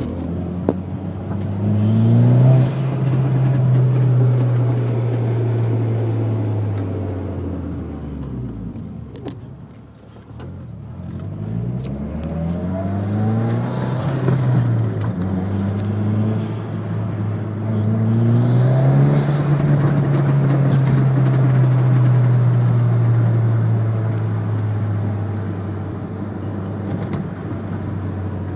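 Mitsubishi Lancer Evolution X's turbocharged 2.0-litre four-cylinder engine revving up, holding and dropping back, twice over, with a metallic rattle that the owner reports coming off throttle around 4,000 rpm.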